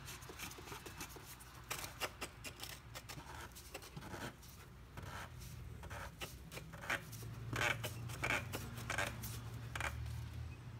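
Oil filter housing cap being screwed back onto its housing by hand: faint, irregular clicks and scraping of the cap's threads as it turns.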